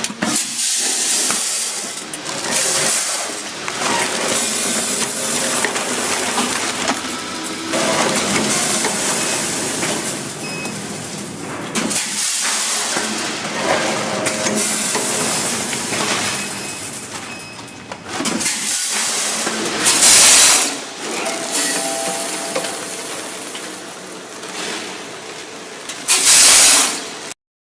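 Automatic macaroni packing machine with a weigher running: continuous mechanical clatter and rattling. Two short, loud hisses about twenty seconds in and again near the end.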